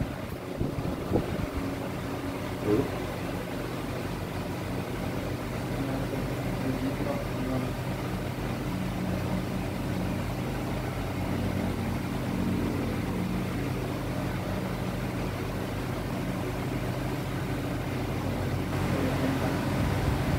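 Steady low mechanical hum, several even tones held without change, with a couple of brief faint knocks near the start.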